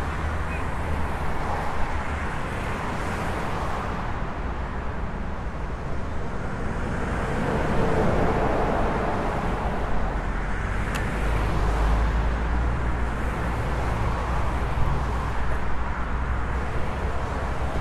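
Roadside traffic noise: a steady rumble of vehicles and engines, swelling a few times.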